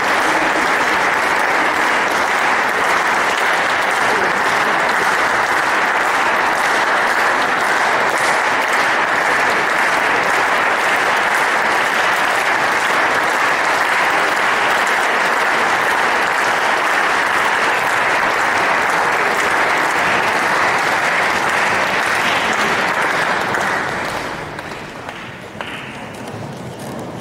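Audience applauding steadily, fading down about three seconds before the end.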